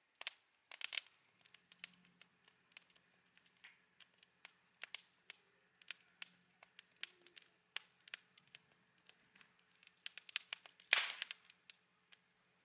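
Wood campfire crackling, with irregular sharp pops, some louder than others.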